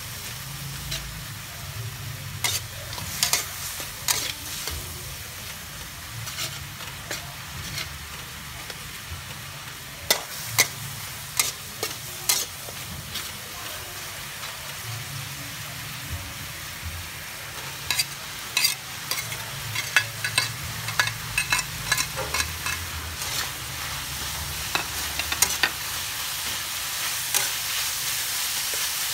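Pork stir-frying in a steel wok: a steady sizzle with frequent sharp scrapes and clanks of a metal spatula against the pan. By the end sliced ginger is in the wok, and the sizzle grows louder over the last several seconds.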